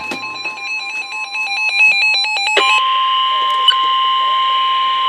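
NOAA Weather Radio alert for a tornado warning: a fast, warbling burst of switching data tones (the SAME digital header) over a steady alarm tone, then the steady 1050 Hz warning alarm tone alone from about halfway in.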